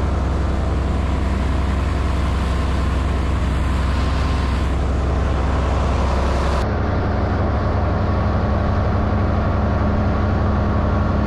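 Air-cooled mud motor on a jon boat running steadily at speed, its engine drone mixed with a hiss of wind and water. About two-thirds of the way through, the sound changes abruptly: the high hiss falls away and the engine note shifts.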